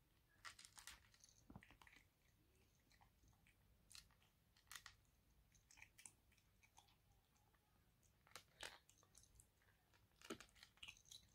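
A kitten crunching dry kitten kibble: faint, irregular crunches that come in small clusters.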